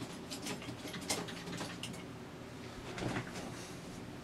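Small tools clicking and clattering as they are picked through on a workbench, with a louder knock of handling about three seconds in.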